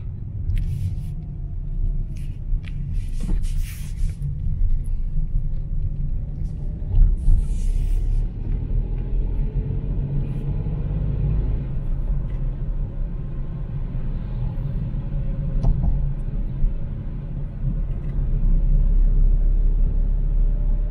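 Opel Corsa on the move on a wet road, heard from inside the cabin: a steady low engine and road rumble. A few brief hisses come in the first eight seconds, and a faint whine rises about ten seconds in as the car picks up speed.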